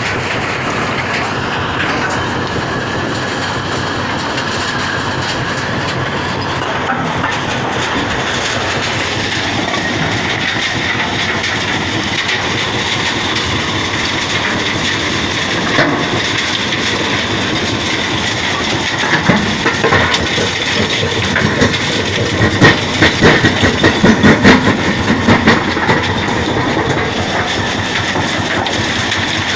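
Vibrating grizzly feeder running loaded with rock boulders: a loud, steady mechanical rattle, with a run of sharper clattering knocks of stone on steel about two-thirds of the way through.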